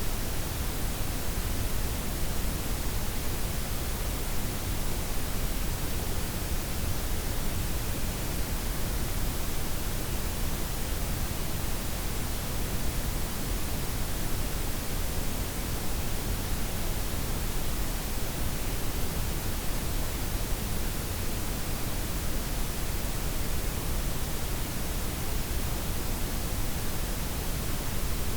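Steady synthetic noise blend of white, pink and brown noise, with the highs gently rolled off and the lows fullest. It runs evenly, with no changes or events.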